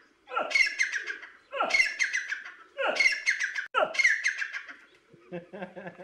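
Grey francolin calling: four repeated phrases about a second apart, each opening with a quick upward sweep and running into a rapid series of high notes.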